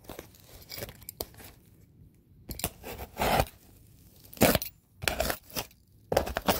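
A box being torn open: irregular ripping and crunching noises of different lengths, with handling noise in between and the loudest rip about halfway through.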